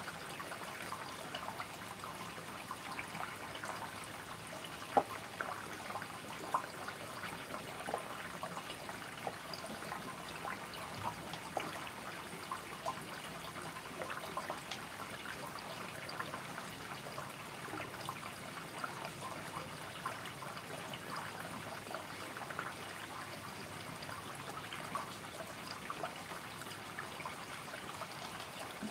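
A cat lapping water from a bowl: a long run of small wet clicks over a faint steady hiss, with one louder click about five seconds in.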